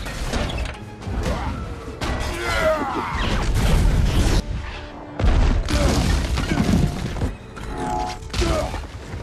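Action-film battle soundtrack: a music score under crashes, smashing impacts and an explosion. It drops away suddenly a little past the middle, then comes back loud.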